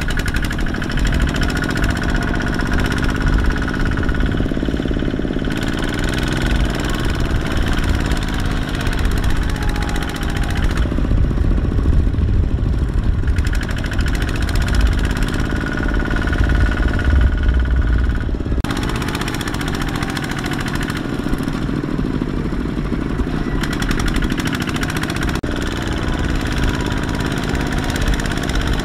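Single-cylinder diesel engine of a two-wheel walking tractor running under load as it hauls a laden trailer through mud. Its engine note rises and falls several times, and the sound shifts abruptly a few times.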